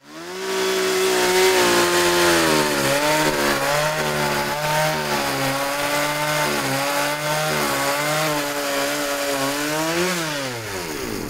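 Small two-stroke petrol chainsaw running at high revs and cutting into a log, its engine note wavering as it loads up. Near the end it revs briefly and then winds down as the throttle is released.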